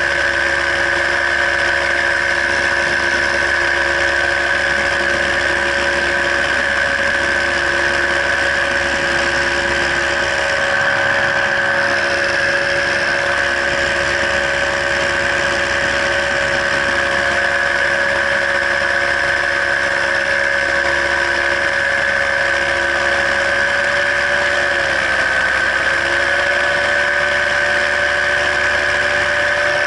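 Paramotor engine and propeller running steadily in flight, a constant drone; the engine pitch dips briefly about 25 seconds in and then comes back up.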